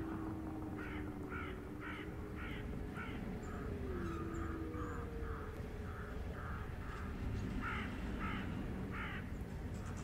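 Crows cawing in runs of harsh calls about two a second, a louder run near the start and another near the end, over a low drone.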